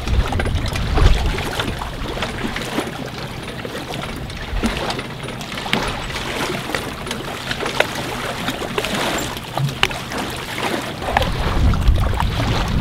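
Hand winch on a jet-ski trailer being cranked to pay out the strap, giving irregular small clicks and rattles over water lapping in the shallows. Low wind rumble on the microphone about a second in and again near the end.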